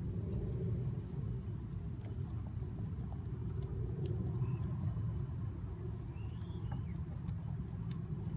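Buckeye hens pecking and scratching in loose potting soil: scattered soft clicks and rustles over a steady low rumble.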